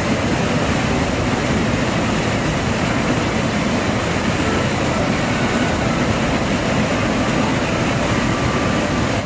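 Mountain valley stream rushing steadily, a loud, even roar of flowing water.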